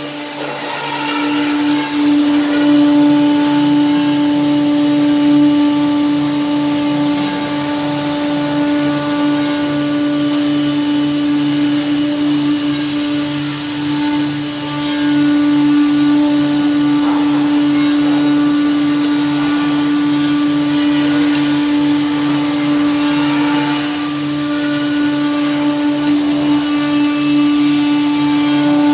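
Electric woodworking saw for cutting curved shapes in wood, running with a steady motor whine and a low pulsing hum, its level dipping slightly a couple of times.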